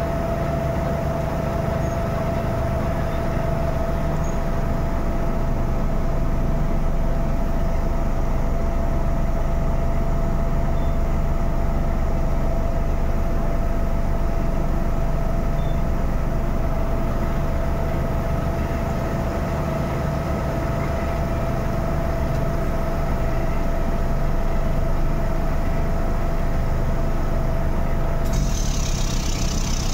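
Drilling rig machinery running steadily: a deep engine rumble with a constant whine over it. A hiss joins in near the end.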